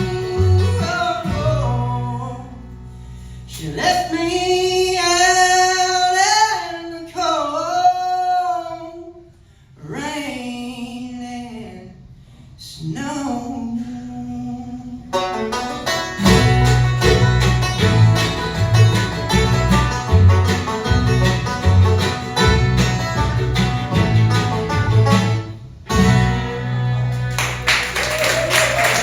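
Live bluegrass band playing the end of a song. Voices in harmony hold long notes, then the band drives through an instrumental close with a steady bass rhythm, stops briefly about 26 seconds in, and comes back for a final flourish.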